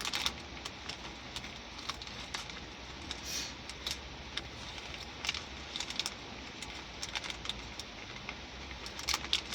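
Small hard candies clicking together and a candy bag rustling as pieces of Nerds Candy Corn are sorted by hand: irregular sharp clicks, with a brief rustle about three seconds in and a quick cluster of clicks near the end.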